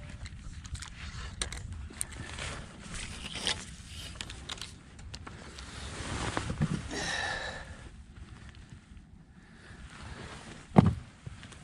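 Handling noises in a small fishing boat: scattered light clicks and scrapes, a brief swell of rustling noise midway, and one sharp knock near the end, the loudest sound.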